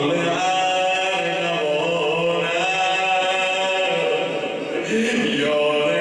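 A man chanting a Persian mourning elegy (maddahi) in long, drawn-out melodic notes that slide up and down in pitch.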